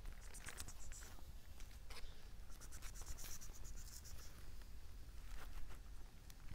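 Leafy garden plants rustling and brushing, with many light scratchy crackles and brief swishes.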